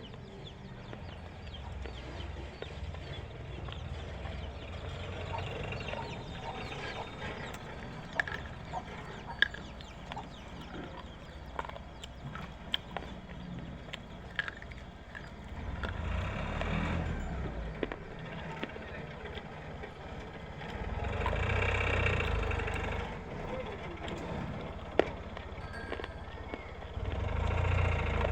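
Slate pencils being bitten and crunched between the teeth, with a few sharp snaps now and then. Longer swells of noise come and go about two-thirds of the way through and near the end.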